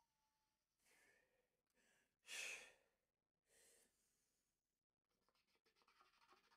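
Quiet pause in solo oboe playing, filled with a few short breaths of the oboist between phrases, the loudest about two and a half seconds in. The oboe comes back in faintly near the end.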